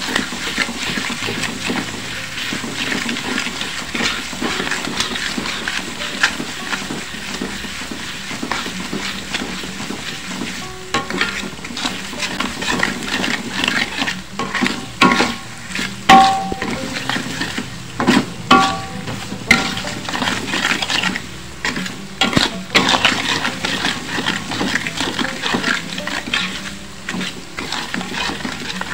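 Ground spice paste sizzling as it fries in oil in a metal wok, while a spatula scrapes and stirs it round the pan in quick repeated strokes. A few louder knocks of the spatula against the wok ring out about halfway through.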